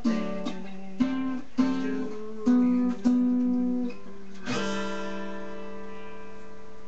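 Acoustic guitar playing a run of separate notes and chords, then one final strummed chord about four and a half seconds in that rings out and slowly fades: the close of a birthday song.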